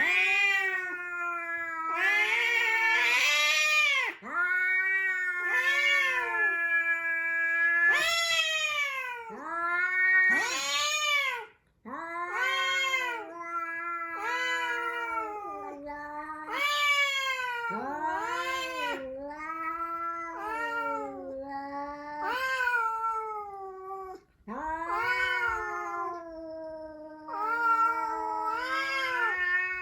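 Cat caterwauling: long, drawn-out yowls that waver and slide up and down in pitch like a siren, almost unbroken, with a few short breaks. This is the threatening yowl of a cat squaring up for a fight.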